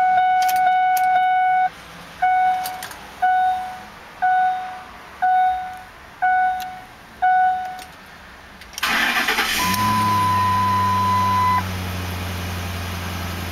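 The truck's cabin warning chime sounds: a steady tone, then six chimes about a second apart. About nine seconds in, the 2007 Lincoln Mark LT's 5.4-litre Triton V8 cranks, catches and settles into a steady idle. A steady higher beep sounds for about two seconds as it fires.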